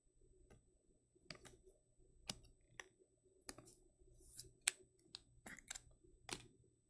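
Soft, irregular clicks and taps of trading cards and rigid plastic toploaders being handled and set down on a table, about a dozen small knocks over several seconds.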